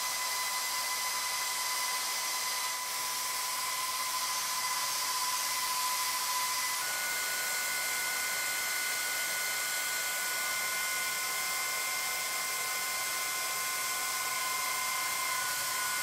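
SALONIA Glossy Care hair dryer blowing steadily: a rush of air with a high, steady whine from the motor. A second whine tone joins about seven seconds in.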